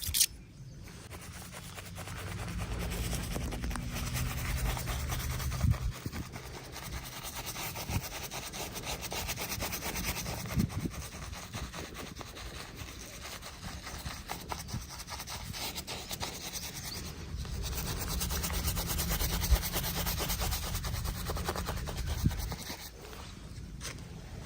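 A barber's razor scraping over stubble and skin in a continuous run of short, rasping strokes, with a few sharp ticks.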